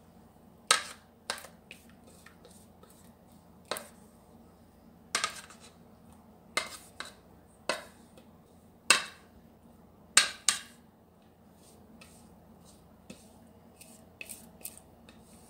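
Sharp, irregular clicks and knocks of a spatula against a mixing bowl as banana bread batter is scraped out into a loaf pan, about ten strokes with pauses between them.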